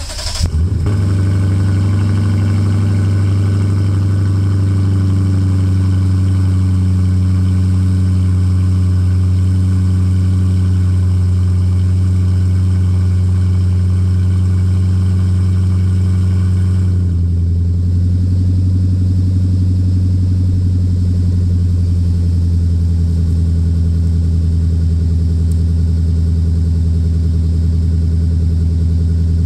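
Lexus IS F's 5.0-litre V8 cold-starting through a custom valved exhaust without resonators: a brief crank and catch, then a steady idle that drops slightly in pitch about 17 seconds in.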